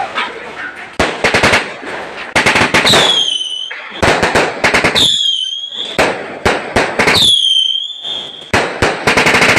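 A multi-shot fireworks cake firing in rapid volleys of sharp cracks and pops. Three shots carry a whistle that dips slightly in pitch and then holds before breaking off.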